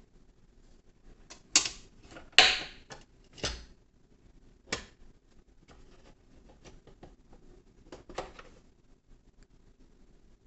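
A handful of sharp clicks and knocks of hard objects being handled, the loudest about one and a half and two and a half seconds in, then a few fainter taps.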